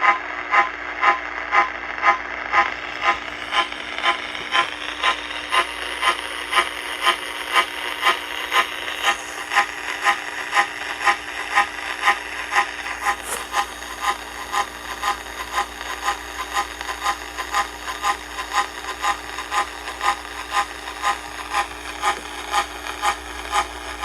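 Radio receiver playing an odd repeating signal that sounds like a teletype starting up: even pulses about twice a second over a steady hum and hiss.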